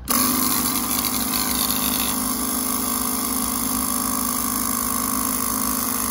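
Portable electric air compressor switching on and running steadily, pumping air into a dirt-bike inner tube to give it a little shape before fitting.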